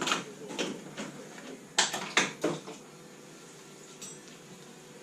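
Metal clinking and clanking from tools and parts being handled during engine removal: about five sharp knocks in the first two and a half seconds, then a low steady hiss.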